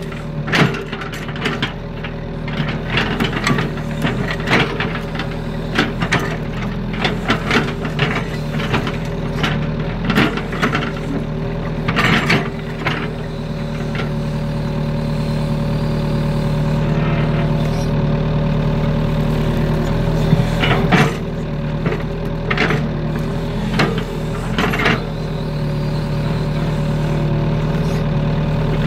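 Kobelco SK03 mini excavator's diesel engine running steadily, with frequent short knocks and clanks from the arm and bucket as they dig mud from a flooded field. The knocks thin out in the second half while the engine grows a little louder.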